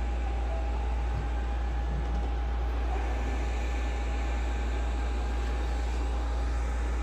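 Robot vacuums running: a steady motor and brush hum with a thin whine that cuts off near the end.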